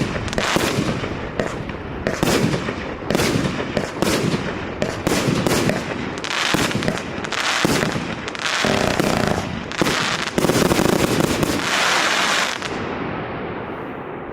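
Maxsem MC12180 consumer firework battery (cake) firing a rapid run of shots, sharp bangs one after another with crackle between them. A louder cluster comes near the end, then the firing dies away as the battery burns out.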